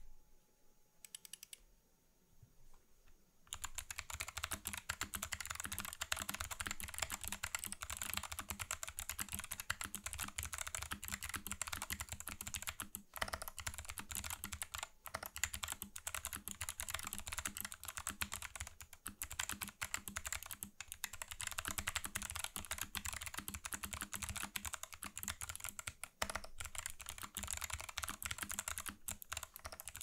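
Fast typing on a custom 60% mechanical keyboard with clicky Kailh BOX White switches, DSA keycaps, an aluminium plate and a plastic case: a dense, continuous stream of sharp clicks. Before it, a few faint clicks, then the typing starts about three and a half seconds in and pauses only briefly a couple of times.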